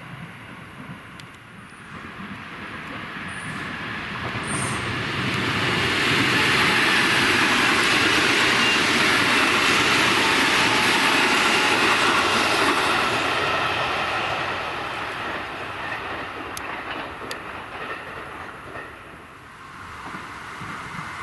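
A JR West electric commuter train approaching, running past and fading away. The rumble of its wheels on the track is loudest for about seven seconds in the middle, with a faint steady high hum.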